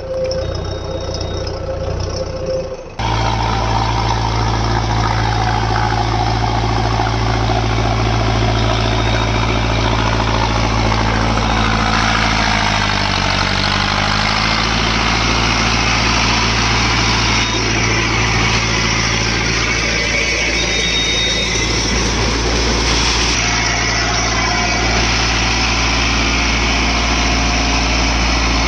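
Mahindra Arjun Novo 605 DI-MS tractor's diesel engine running steadily while it works through wet mud. About twelve seconds in the engine pitch sags for a couple of seconds, then recovers. Before the engine comes in, the first three seconds hold a different sound that changes abruptly.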